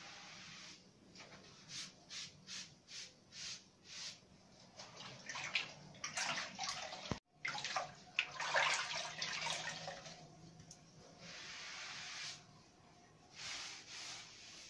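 Wet sponge wiping grout haze off a mosaic tile wall: short wiping strokes about two a second, then longer, denser scrubbing, with the wet slosh of water.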